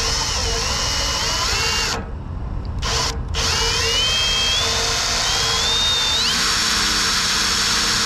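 Cordless drill with a thin twist bit drilling a pilot hole into a chrome truck bumper. It runs, stops briefly twice around the two- and three-second marks, then runs on with its motor whine rising in pitch in steps before holding steady.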